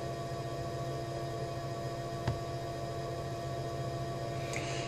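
Steady electrical mains hum with a faint hiss: room tone. A single faint click comes a little over two seconds in.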